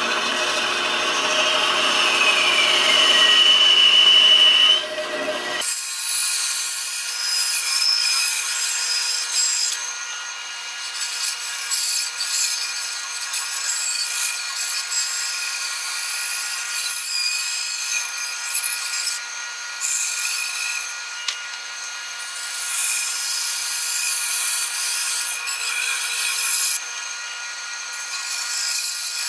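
Benchtop bandsaw cutting a hardwood blank along a curved outline: the blade hisses through the wood over a steady motor whine, the cutting noise swelling and easing as the piece is fed. The sound is louder and fuller for the first five or six seconds, then changes abruptly to a thinner, hissier cutting sound.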